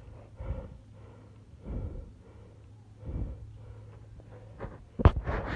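A person breathing hard from the strain of a steep climb, with four heavy exhalations about every second and a half. Near the end come a few sharp, louder knocks.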